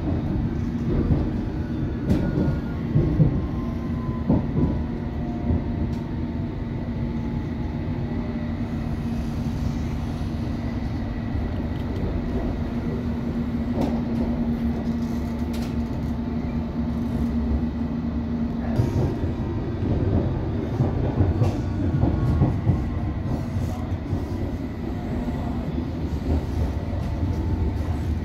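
London Underground District line S7 Stock train running between stations, heard from inside the carriage: a steady rumble of wheels on rail with a steady hum that stops about 19 seconds in, leaving a heavier rumble. Scattered clicks from the wheels passing over rail joints.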